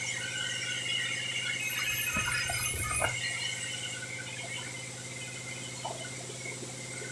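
Sawmill bandsaw running without a log in the cut, a steady hum with a high whine from the blade. About two seconds in comes a burst of about a second and a half of scraping and knocking.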